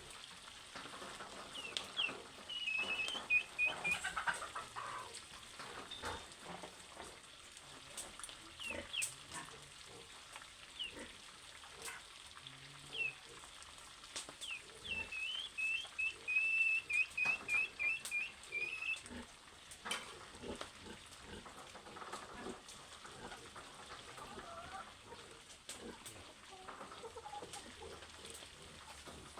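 Food frying in a pan, with scattered crackles and pops. Over it a bird gives runs of quick, high chirps a few seconds in and again around the middle.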